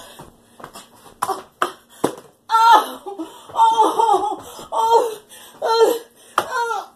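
A few sharp knocks, then a woman's short wordless vocal outbursts, about five of them, each bending in pitch.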